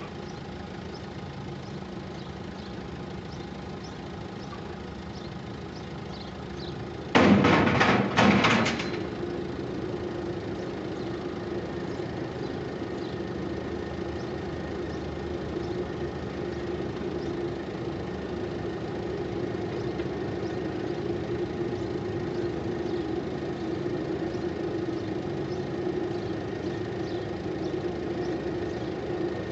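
An engine idling steadily. About seven seconds in comes a loud burst of several clanks and rattles lasting about a second and a half, after which the engine hum is slightly louder.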